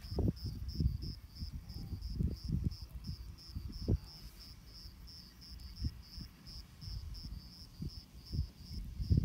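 An insect chirping in a steady rhythm of short, high chirps, about three to four a second, with irregular low gusts of wind buffeting the microphone.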